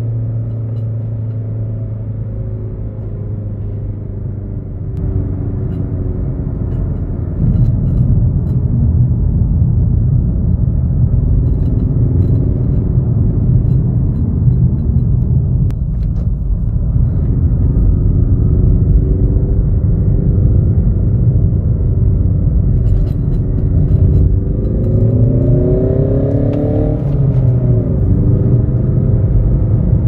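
Renault Mégane 4 heard from inside the cabin while driving, with the RS Sound Effect switched on and a steady low road rumble. The engine note falls as the car slows at first, then rises under acceleration near the end and drops back sharply.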